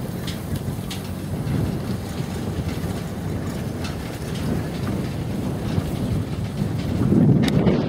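Car driving on a bumpy dirt track: steady rumbling tyre and road noise with scattered knocks and rattles from the bumps, and wind buffeting the microphone held at the open window. It swells louder near the end.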